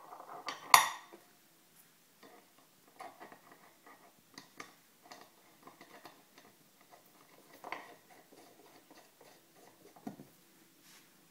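Metal grommet dies clicking and knocking as they are handled and fitted into a table-top snap press, with one sharp knock about a second in and smaller clicks and taps throughout.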